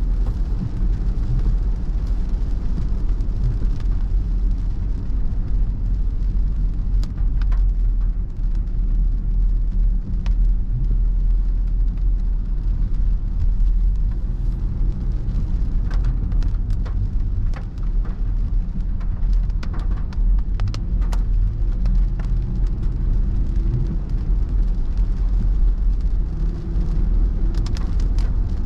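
Steady low rumble of a car's road and engine noise heard from inside the cabin while driving on a wet road. Scattered irregular ticks of raindrops hit the windscreen.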